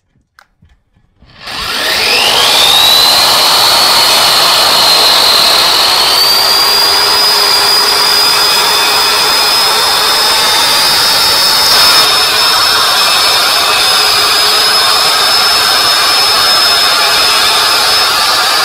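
Y-IKING wall chaser (wall grooving machine) starting up about a second and a half in, its motor whine rising quickly to a high pitch. It then runs steadily under load as its blades cut a water-fed groove into a plastered brick wall.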